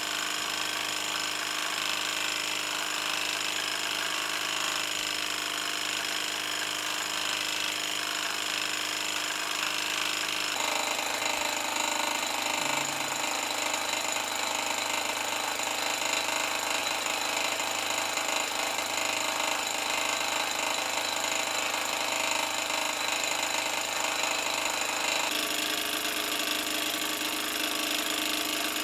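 Liney 1 miniature single-cylinder oscillating steam engine running fast and steadily, a rapid even chatter of its exhaust and moving parts.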